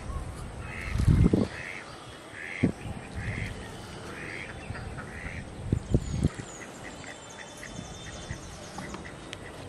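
A run of about six short animal calls, a little over half a second apart, with a few low thumps; the loudest thumps come about a second in and about six seconds in.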